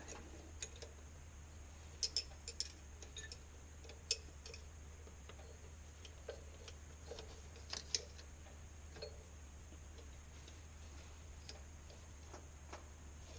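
Faint, scattered metallic clicks and scrapes of a hand tool working at the metal retaining ring in a wheel loader's hydraulic steering cylinder. The few louder clicks come about two, four and eight seconds in.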